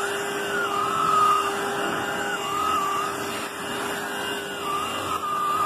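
Bissell Pet Hair Eraser cordless hand vacuum running on a low battery charge, sucking cat hair off a fabric sofa cushion. A steady hum with a whine above it that dips and rises in pitch several times.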